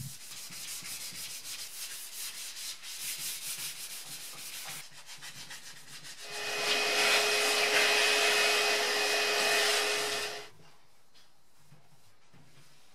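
Primed steel fuel tank being dry-sanded by hand with a sanding foam pad: rhythmic rubbing strokes, several a second. About six seconds in, a loud steady hiss with a faint whistle starts, lasts about four seconds and cuts off suddenly.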